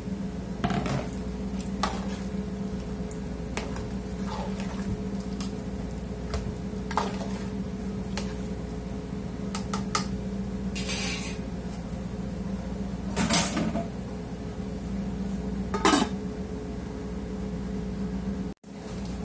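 A metal spoon knocking and scraping against a large aluminium stockpot as vegetables are stirred into a stew, with scattered sharp clanks; the two loudest, about two-thirds of the way through, fit the aluminium lid being set on the pot. A steady low hum runs underneath.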